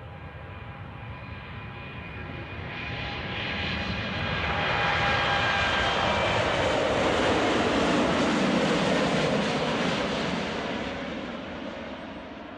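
Jet airliner's engines passing by: a rumble with a high whine that swells to a loud peak in the middle and then fades away.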